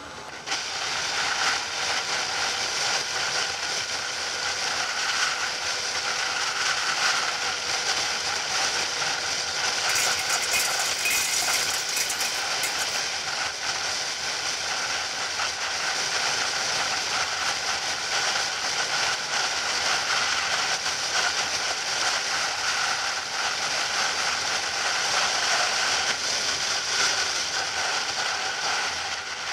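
Steady rush of wind over a motorcycle-mounted camera at road speed, with the motorcycle's engine running underneath at a steady cruise.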